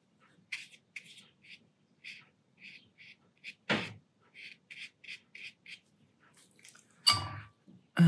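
Paintbrush stroking and dabbing on watercolour paper: a string of soft, short scratchy touches. There is a sharper knock about halfway through and a louder thump near the end.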